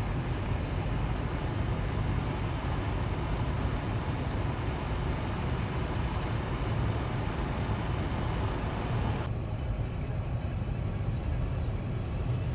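Steady road and engine rumble heard from inside a moving car, strongest in the low range, with a hiss over it. About nine seconds in, the hiss drops away abruptly and the low rumble carries on.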